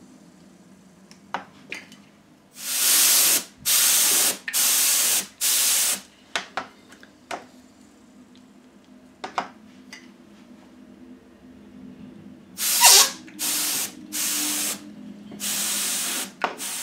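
Short hissing blasts from a can of compressed air blowing wet alcohol ink across the painting surface: four bursts, a pause of several seconds, then four more. A few faint clicks fall between them.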